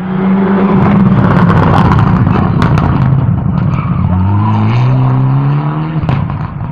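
Rally car passing at speed under hard acceleration. The engine note climbs, drops sharply at a gear change about six seconds in, then climbs again, with a few sharp cracks near the middle.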